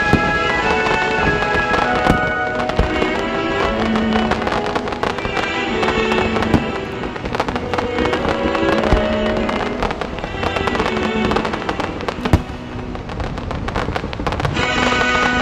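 Fireworks crackling and banging in quick, irregular volleys, with one especially loud bang about twelve seconds in, over loud music.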